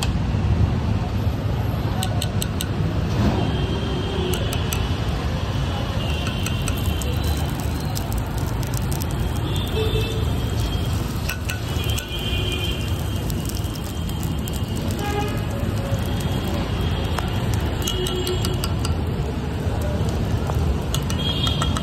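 Busy road traffic: a steady rumble of engines, with short horn toots every few seconds.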